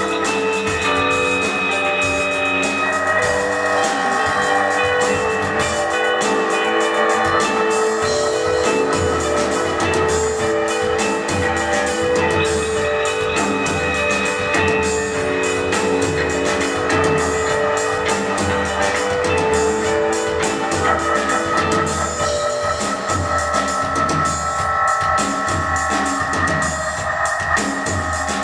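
Live instrumental post-rock band playing: electric guitars holding sustained, layered notes over keyboards and a drum kit keeping a steady beat, picked up by a camera microphone in the audience.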